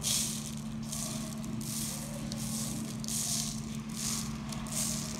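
Granulated sugar sprinkled by hand onto soft cookie dough and parchment paper, falling in soft hissing patters about once a second, over a steady low hum.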